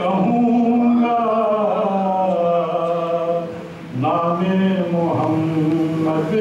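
A man singing a naat, drawing out long, ornamented notes that waver in pitch, with a short break for breath about four seconds in.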